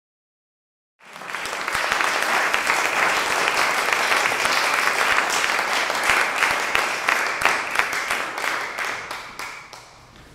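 Audience applauding, starting about a second in, then dying away near the end.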